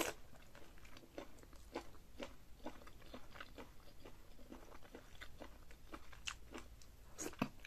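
Close-miked eating of seafood boil in chili butter sauce: irregular wet chewing and lip-smacking clicks, with a louder bite right at the start and another near the end.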